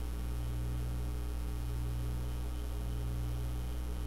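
Steady low electrical mains hum with a faint hiss underneath.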